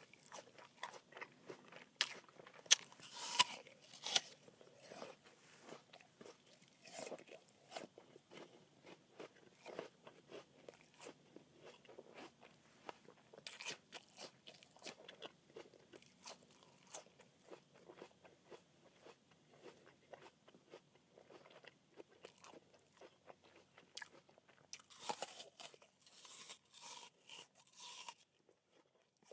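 Crisp apple being bitten into and chewed: a run of wet, crackly crunches, with louder bites about two to four seconds in, around seven seconds, near fourteen seconds and again near the end, and softer chewing crunches between. The crunching stops just before the end.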